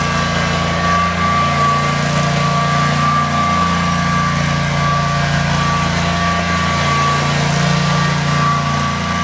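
Dixie Chopper XCaliber zero-turn mower's engine running steadily as the mower drives and turns, its pitch wavering slightly, with a steady high whine over it.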